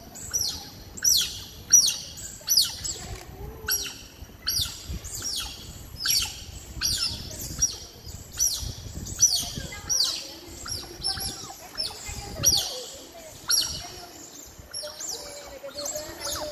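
Smooth-coated otters chirping: a steady run of short, high-pitched calls, each dropping in pitch, more than one a second.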